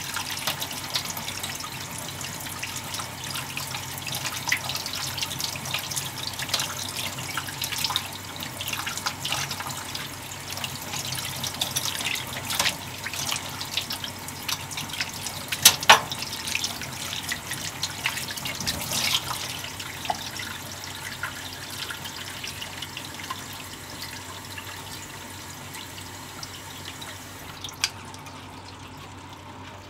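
Kitchen tap running onto a cutting board and over mirugai clam meat as it is rinsed and rubbed clean by hand, the water splashing steadily. A few sharp clicks stand out, the loudest about 16 seconds in, and the running water grows softer near the end.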